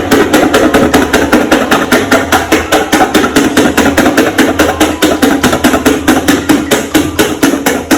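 Rapid, even knocking like hammering, about seven sharp strikes a second, starting abruptly and stopping near the end.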